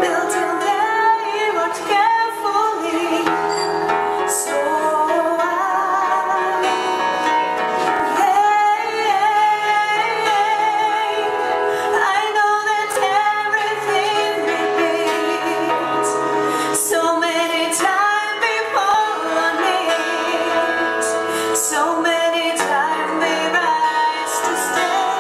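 A rock band playing live, with a woman singing over the instruments.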